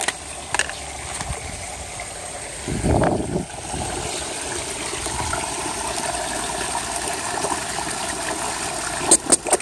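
Backyard koi pond water running and trickling steadily. About three seconds in there is a brief low rumble, and near the end a few sharp clicks.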